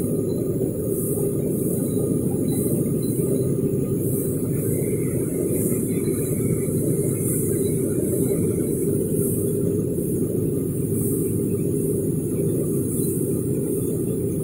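Vertical CNC machining center milling a metal block with an end mill: a steady cutting rumble with a high hiss that swells and fades about once a second.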